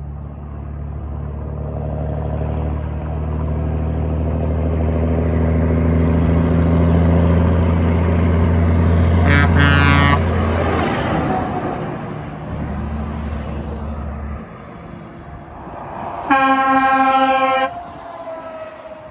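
A Freightliner conventional log truck's diesel engine draws near with a rising drone, gives a brief blast on its pair of Grover 1055 air horns about halfway through, and drops in pitch as it passes. A few seconds later a Peterbilt 579 tanker sounds its pair of Hadley H00870CN air horns in a louder blast of about a second and a half.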